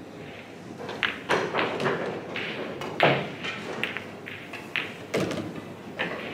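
Pool balls clicking: an irregular string of sharp clicks and knocks from cue tips striking balls and balls colliding, the loudest about three seconds in, with more than one table in play.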